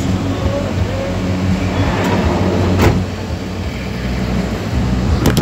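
Shuttle van's engine running at low speed, heard from inside the cabin as a steady low hum. A sharp click comes about three seconds in, and two more near the end.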